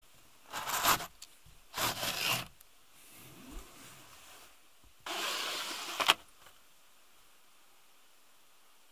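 Camper van window blinds being slid open: two quick rubbing swishes, then a longer slide about five seconds in that ends in a sharp click.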